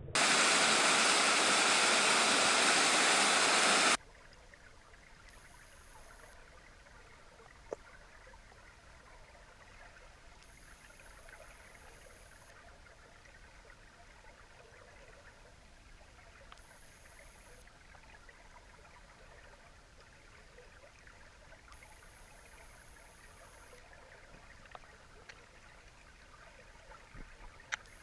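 A loud, even rushing hiss for about the first four seconds that cuts off suddenly. It is followed by faint underwater ambience picked up through an underwater camera housing, with a high steady whine that comes and goes every few seconds and an odd faint click.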